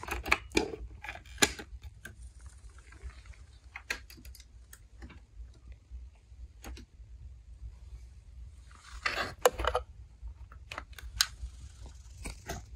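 Scattered sharp clicks and knocks of small objects being handled, with a short rustle among a cluster of clicks about nine seconds in, over a low steady hum.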